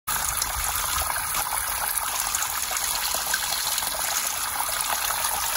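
Water trickling and splashing down a mossy rock face into a shallow pool, a steady rush of falling streams and drops that cuts in abruptly at the start.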